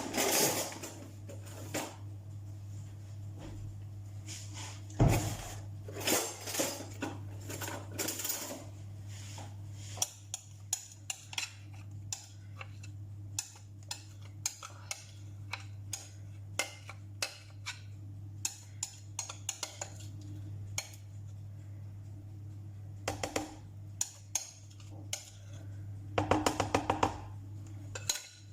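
Kitchen utensil clinking and scraping against a mixing bowl and cake tin as cake batter is poured and scraped out, in scattered taps and knocks. There is one louder knock about five seconds in and a quick run of rattling taps near the end, over a steady low hum.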